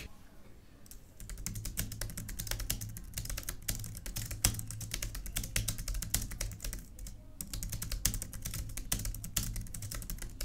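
Logitech Craft low-profile membrane keyboard with scissor-mechanism keys being typed on fast: a rapid, uneven stream of short key clicks that starts about a second in.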